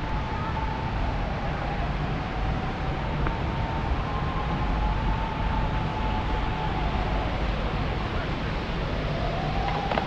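A steady rushing noise, with a faint siren wavering slowly in pitch over it, dipping lower near the end and rising again.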